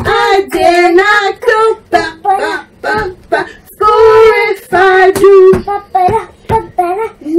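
A young girl and a woman singing a song together, in phrases with long held notes.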